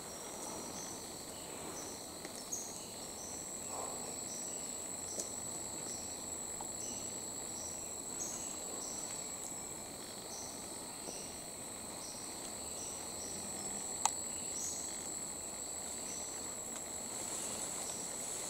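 Rainforest insect chorus: a steady high-pitched buzz with a short chirp repeating about every 0.7 seconds over it. A single sharp click about fourteen seconds in.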